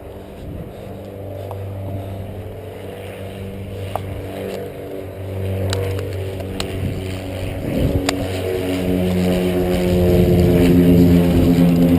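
A motor engine running steadily and growing louder, with a few sharp clicks about four, six and eight seconds in.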